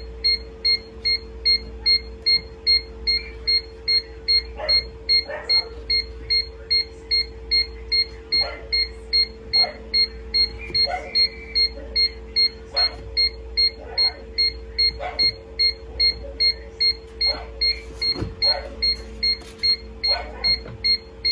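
An electronic beeper sounds rapidly and steadily, about three short high beeps a second, over a steady hum. Now and then there are light knocks and clicks of chicken eggs being lifted out of a styrofoam incubator box and set into a cardboard egg tray.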